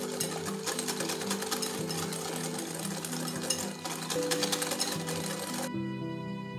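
Wire balloon whisk beating egg yolks and sugar in a glass bowl: fast, continuous clicking and tapping of the wires against the glass, which stops shortly before the end, leaving only soft background music.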